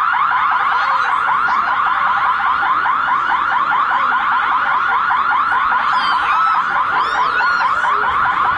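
Fire station's internal call-out alarm sounding: a loud electronic tone sweeping upward over and over, several times a second. It is the signal that summons the firefighters to accidents and fires.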